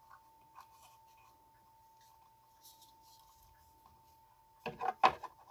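Hands handling model parts and wiring cables against a wooden base: faint scratches and light taps, then a louder rustling clatter about five seconds in. A faint steady whine runs underneath.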